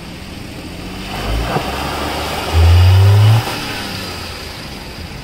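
Maruti Suzuki Alto 800's three-cylinder petrol engine revving: the revs climb from about a second in, hold high and loud for about a second in the middle, then drop back, as the car sits stuck with its front wheel sunk in mud.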